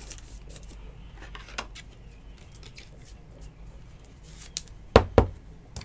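Hands handling trading cards and their packaging: faint rustling with light scattered clicks, then two sharp snaps about five seconds in.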